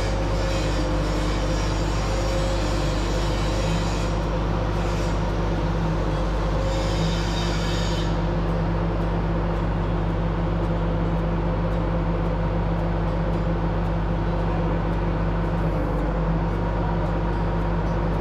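Steady mechanical drone with a constant low hum and a few held tones; a higher hiss over it fades out about eight seconds in.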